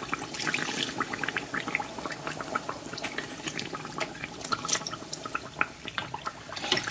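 Hot oil sizzling and crackling around a sesame-coated bánh tiêu dough frying in a pan, in dense irregular crackles, while hot oil is ladled over the top of the dough and splashes back into the pan, loudest near the end.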